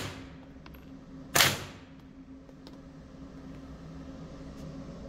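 A single suppressed .22 LR shot from an HK416 .22 rifle with a Yankee Hill Phantom 22 suppressor, about a second and a half in, with a short echo off the range walls. The tail of the previous shot is heard at the very start.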